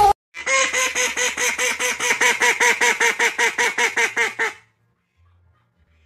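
A duck quacking in a fast, even run of short calls, about five quacks a second, cutting off suddenly a little after four seconds in.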